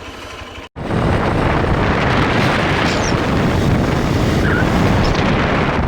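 Motorcycle engine idling quietly, then after a brief dropout about a second in, a loud steady rush of the motorcycle on the move with wind noise on the microphone.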